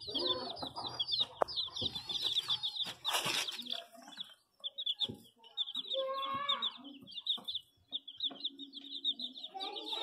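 A brood of domestic chicks peeping: many high, overlapping cheeps in quick succession, with a couple of brief lulls.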